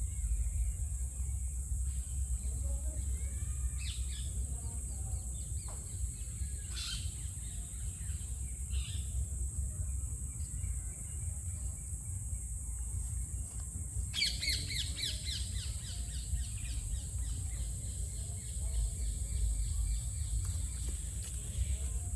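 Birds chirping and calling, with a rapid trill of quickly repeated notes about fourteen seconds in, over a steady high hiss and a low rumble.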